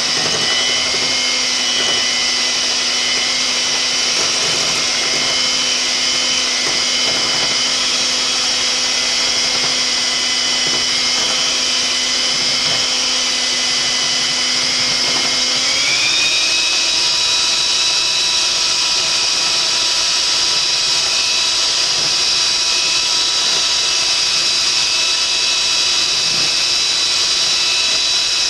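Electric mixer beating egg yolks with sugar: a steady motor whine that steps up to a higher speed a little past halfway through.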